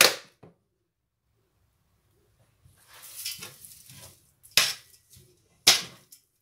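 A spatula stirring and scraping dry potato-and-chicken filling in a stainless steel frying pan, with two sharp knocks of the spatula against the pan in the second half.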